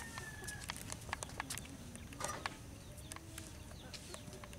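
Faint scattered light clicks and knocks, a little stronger about halfway through, with faint bird calls in the background.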